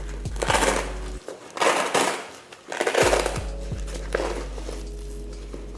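Background music with a deep bass line and a strong percussive hit about once a second.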